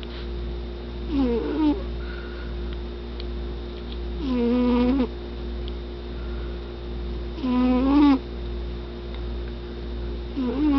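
A cat snoring loudly: a pitched, tonal snore on each breath, about every three seconds, four in all.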